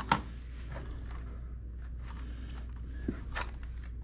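A few light knocks and clicks of objects being handled and moved, with faint rustling, over a steady low hum.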